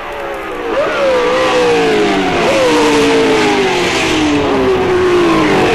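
A 1960s three-litre Formula One racing engine shifting down under braking for a hairpin. Its note jumps up sharply about three times, and the pitch sags after each jump as the revs fall. It grows louder over the first second as the car approaches.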